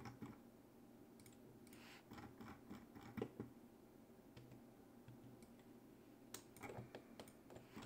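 Faint computer keyboard key presses and mouse clicks: a handful of short, sharp clicks over quiet room tone, with a quick cluster near the end.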